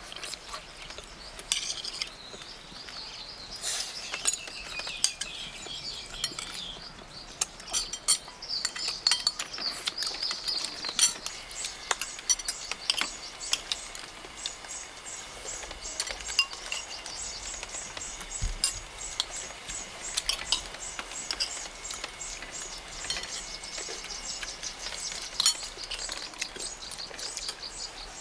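Metal spoon clinking and scraping against a ceramic soup bowl now and then during eating, with steady high chirping in the background.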